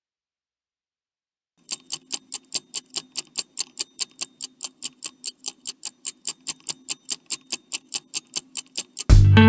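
Rapid, even ticking like a clock or timer, about five ticks a second, beginning after a second and a half of silence. Near the end, loud guitar music cuts in.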